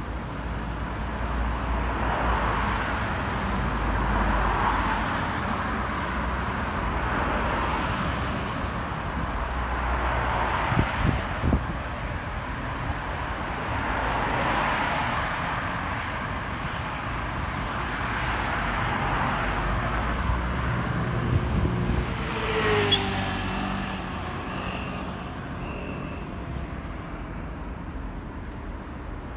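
City road traffic: cars pass one after another in swells of tyre and engine noise every few seconds. About three-quarters of the way through, one vehicle's engine note rises in pitch as it goes by.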